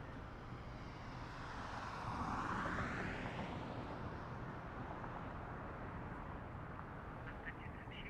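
A vehicle passing by over a steady low rumble of traffic, swelling to its loudest about two to three seconds in and then fading away.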